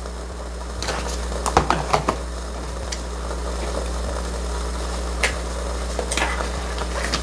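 Scattered light clicks and taps of things being handled at a table, a quick cluster about a second in and a few single ones later, over a steady low hum.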